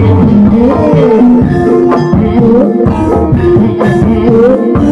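Loud Javanese ebeg (kuda kepang) dance music: steady hand-drum strokes under a winding melody line.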